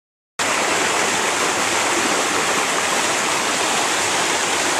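River water rushing steadily, cutting in abruptly about half a second in.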